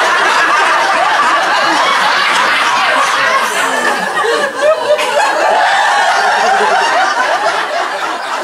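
Audience laughing, many voices at once in a continuous, unbroken wave of laughter.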